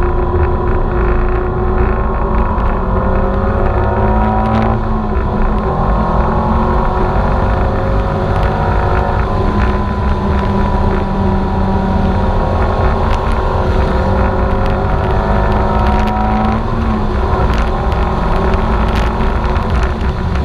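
Subaru Forester XT's turbocharged flat-four engine pulling hard at speed, its pitch climbing for several seconds at a time and dropping sharply twice, about four seconds in and near the end, as the driver shifts or lifts. A heavy low rumble runs underneath.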